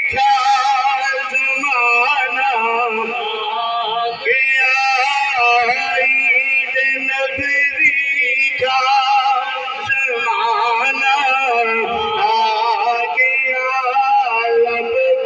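Man singing a devotional naat in long, wavering held notes, drawn out and ornamented, with short breaths between phrases.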